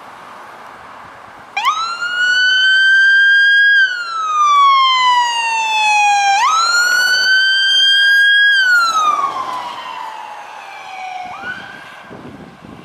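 Siren of a red fire department SUV sounding a wail. Twice it rises quickly, holds high, then falls slowly, with a short third rise near the end as the sound fades.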